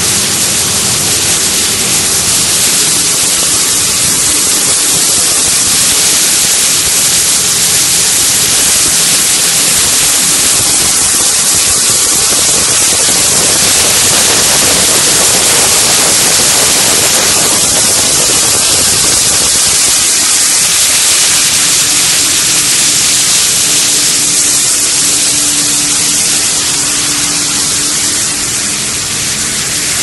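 HDPE pipe shredding and washing line running: a loud, steady rushing noise from the machinery, with a faint steady hum underneath that grows a little stronger after about two-thirds of the way through.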